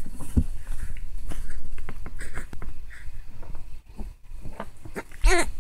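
Baby cooing: scattered soft mouth sounds, then near the end one short, high-pitched coo that rises and falls. A low rumble runs underneath.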